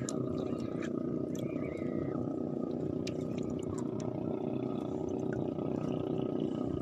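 Small fishing boat's engine running steadily, a low, even drone with a fast pulsing beat, with a few faint clicks over it.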